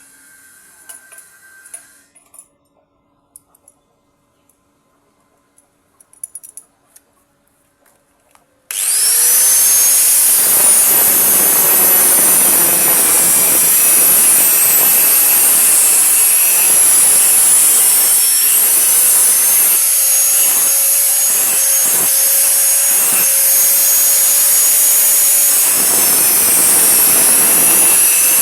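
A few light clicks and taps, then about nine seconds in a power tool, likely an angle grinder, whines up quickly and runs steadily on the steel plate with a loud, high-pitched grinding noise.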